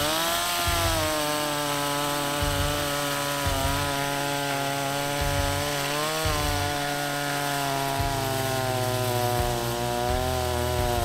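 Chainsaw running at high revs, cutting through a fallen tree trunk; its engine note wavers and dips as the chain bites, most clearly about six seconds in.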